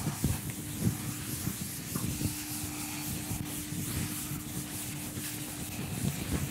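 Chalkboard eraser rubbing back and forth across a chalkboard, wiping off chalk writing in repeated, irregular scrubbing strokes.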